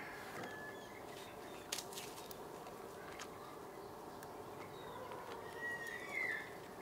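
Birds chirping over a steady outdoor background hum, with a few faint clicks about two to three seconds in and a short rising chirp near the end.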